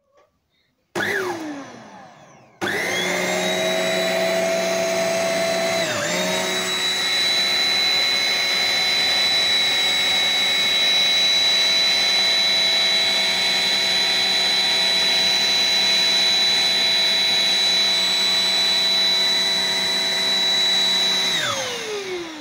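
smarock S10 Pro dual-cup handheld mattress vacuum cleaner motor: it starts about a second in and at once winds down with a falling whine, then starts again and runs with a steady high whine, dipping briefly once. Near the end it switches off and spins down, its whine falling away.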